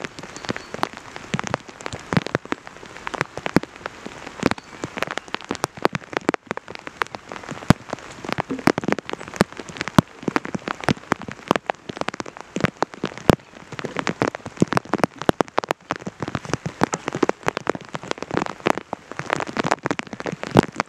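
Rain shower falling, with a dense, irregular stream of sharp drop hits close to the microphone over a steady hiss.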